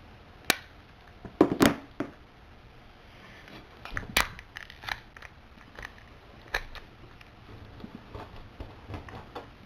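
Wire cutters snipping through packing tape while the tape is pulled off a small package: sharp snips about half a second, a second and a half and four seconds in, with lighter clicks and crinkles between.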